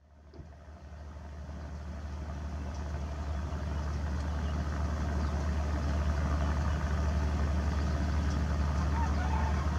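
Vehicle engine idling: a steady low hum that swells up over the first few seconds and then holds even.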